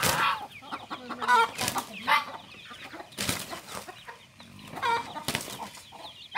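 Chickens clucking in short, scattered calls, with a few sharp knocks among them.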